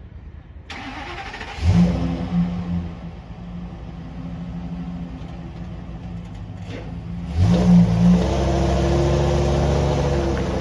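Ford 6.8-litre V10 gasoline engine of a motorhome running and being revved: a short rev about two seconds in that drops back, then a higher rev from about seven seconds in that is held.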